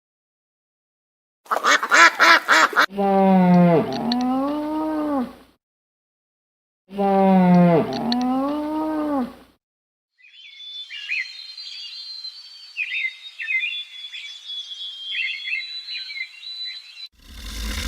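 A string of animal calls: a short rapid pulsed call, then two long pitched calls that drop and then rise in pitch, then several seconds of high twittering chirps.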